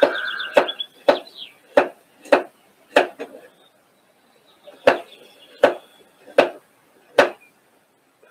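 Kitchen knife chopping vegetables on a cutting board: about eleven sharp, separate strokes, unevenly spaced, with a pause of over a second in the middle.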